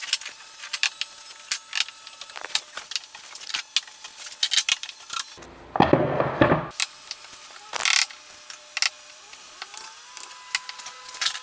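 Carpentry work on wooden stair balusters: a run of sharp clicks and knocks from tools on wood, with a louder power-tool burst of about a second past the middle.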